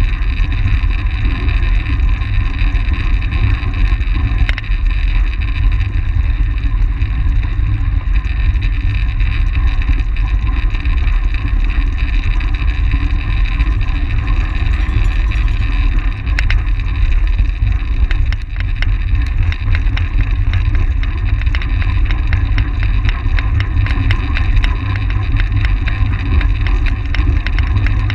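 Wind buffeting the microphone of a bike-mounted camera at racing speed, heard as a steady heavy rumble, mixed with the rolling noise of track-bike tyres on the velodrome surface. Scattered faint ticks come in the second half.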